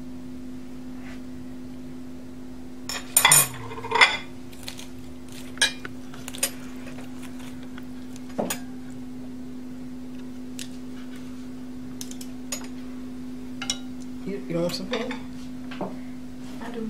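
Serving utensils clinking and scraping against plates and serving bowls as food is dished up: scattered sharp clinks, the loudest cluster about three to four seconds in, more a few times after. A steady low hum runs underneath.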